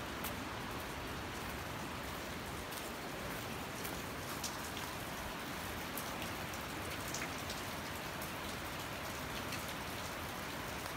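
Steady, even rush of flowing water, with scattered faint clicks over it.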